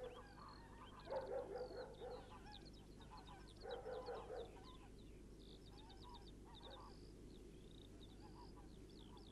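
Faint farmyard background: small birds chirping throughout, with two short bursts of poultry calling, about a second in and again around four seconds in.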